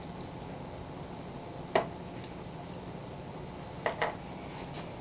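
Light kitchen handling sounds over a steady low hiss: a single click about two seconds in and two quick knocks near four seconds, from a spatula and a small glass measuring cup against a plastic mixing bowl as ingredients go into the slaw.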